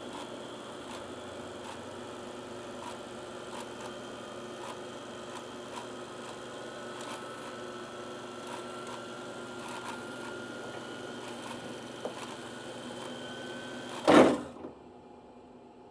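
Reel-to-reel tape machine running as its reel winds tape: a steady mechanical whirr with a faint tick repeating about every two-thirds of a second and a faint whine slowly rising in pitch. Near the end a loud, brief burst of noise, after which it drops to a faint hiss.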